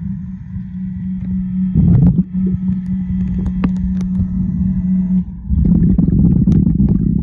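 An engine running at a steady pitch under a low rumble. It swells louder briefly about two seconds in and again from about five and a half seconds.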